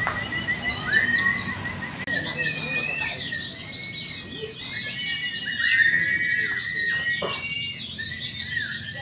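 Many caged white-eyes (pleci) singing at once in a continuous chorus of overlapping high, fast chirps, trills and short whistles.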